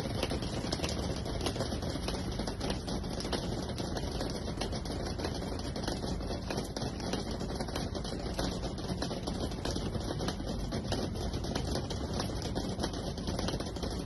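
Dense, steady crackling patter of wet snow falling onto snow-laden branches and ground.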